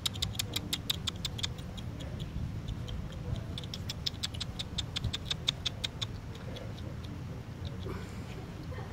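A person making a rapid clicking sound with the mouth, about five clicks a second, to call a coati. The clicking breaks off briefly near two seconds and stops about six seconds in.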